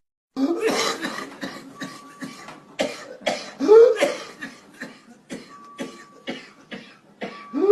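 A person coughing in a long run of many short, rapid coughs, broken about midway and again near the end by a rising voiced sound.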